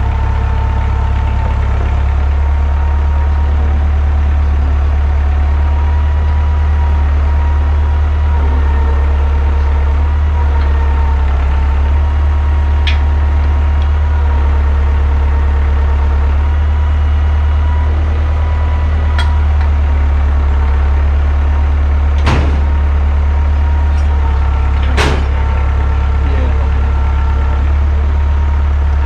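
Engine powering the sawmill, running steadily at idle with a deep hum and a thin steady tone above it; two sharp knocks sound near the end.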